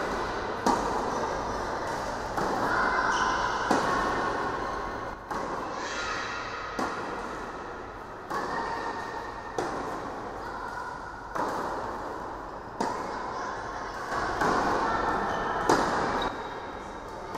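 Tennis balls struck with rackets during a groundstroke rally, a sharp hit about every one and a half seconds, each ringing out in the echo of an indoor tennis hall.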